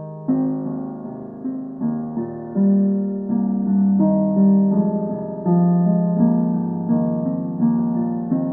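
Background piano music: gentle notes struck one after another, each fading before the next.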